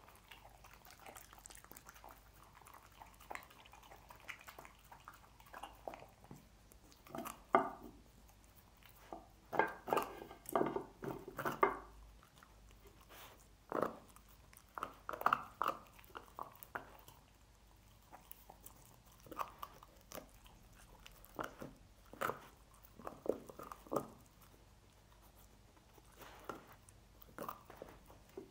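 Dog chewing and gnawing cooked pork trotter bones: irregular bouts of crunching and biting, with quieter stretches of slower chewing between.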